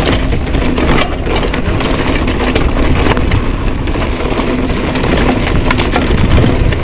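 Mountain bike descending a rocky dirt trail: wind rumbles on the action camera's microphone while the tyres roll over stones and gravel, with frequent sharp rattles and clicks from the bike over the bumps.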